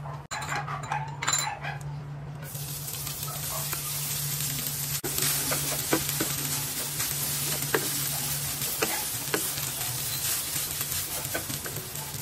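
Cooked rice sizzling in hot oil in a nonstick frying pan while a wooden spatula stirs and turns it, tapping and scraping against the pan. The sizzle starts about two seconds in and carries on steadily, over a constant low hum.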